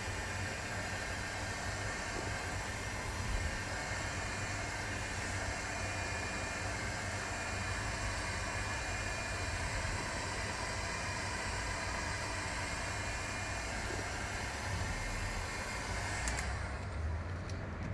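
Hand-held hot-air blower running with a steady hiss and faint whine, heating the adhesive tape on the back of a car weathershield; it switches off about 16 seconds in.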